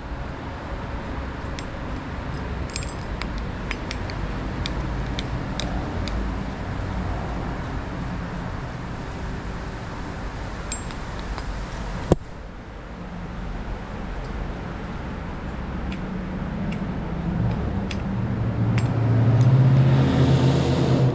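Road traffic rumbling steadily, with a loud vehicle engine building up near the end. Over it come small metallic clinks and ticks as tiny chainring bolts are unscrewed and handled, and one sharp click about twelve seconds in.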